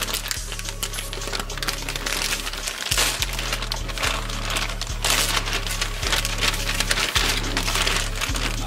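A plastic poly mailer crinkling and rustling as it is pulled open and folded back, in surges that grow louder about three seconds in. Background music with a steady bass line plays underneath.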